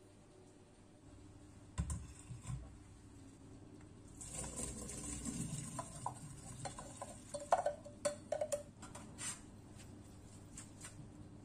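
Boiled macaroni and its hot water poured from a saucepan into a stainless-steel colander in a sink: a couple of soft knocks, then a spell of splashing and trickling about four seconds in, followed by scattered clinks and knocks of metal pot and colander as the pasta is shaken to drain.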